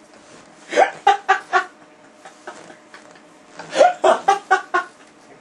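A man laughing in two bouts, each a rising first burst that breaks into four or five quick, evenly spaced pulses.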